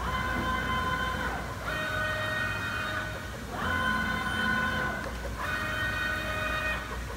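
Kongsberg X flatbed cutting table's head and gantry drives whining through four short moves of just under two seconds each. The pitch glides up as each move starts and down as it stops, over a steady low hum.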